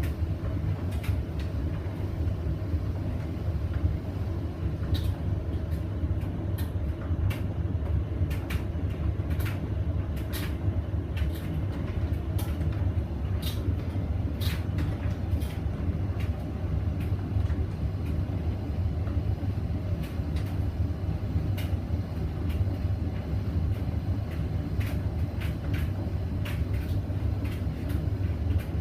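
Hoover Vision Dynamic washing machine running with a steady low rumble, with irregular light clicks and knocks throughout.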